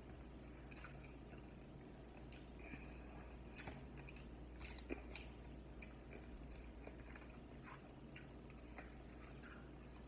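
Faint chewing of hot wings and French fries: soft, wet mouth clicks and smacks, with one sharper click about five seconds in.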